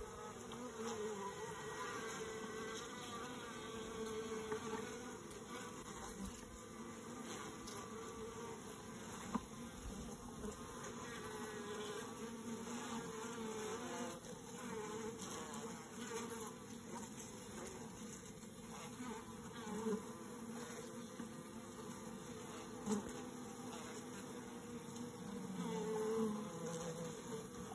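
A crowded colony of honey bees in a nuc box buzzing: a steady hum of many wings whose pitches waver and overlap, with a couple of brief taps.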